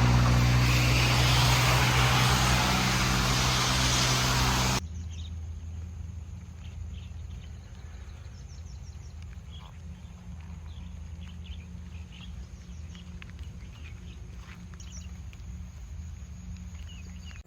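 Motor vehicle running loud for about five seconds, then cutting off abruptly. After that comes a quieter steady low hum with faint, scattered bird chirps.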